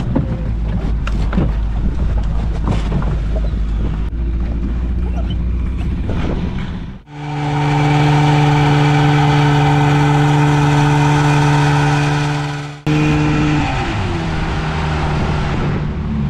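A small outboard motor drives a dinghy along with wind and water rushing past. In the middle stretch it runs louder and higher at speed. Near the end its pitch drops as it is throttled back.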